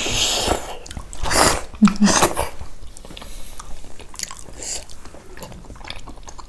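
Close-miked mukbang eating of dhido and buffalo-leg soup: a few loud mouth sounds in the first two and a half seconds, then quieter chewing.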